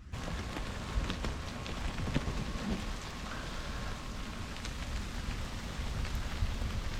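Steady rain falling, starting abruptly, with many scattered sharp drop impacts over a constant hiss.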